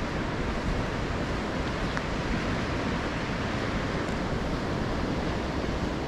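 Steady wash of low surf breaking along a sandy beach.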